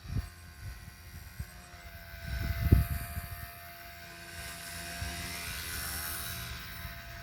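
XK K110S micro RC helicopter flying, its brushless electric motor and rotors giving a steady whine with a high hiss. Low gusts of wind buffet the microphone, loudest about two and a half seconds in.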